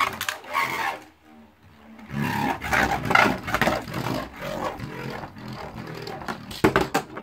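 A Beyblade Burst top spinning on the plastic floor of a stadium, with a steady whirring scrape that fades about a second in, returns about two seconds in, and ends in a few sharp clicks near the end.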